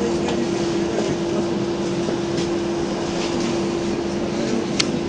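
Cabin noise inside a moving trolleybus: a steady hum under an even rumble. A single sharp click comes near the end.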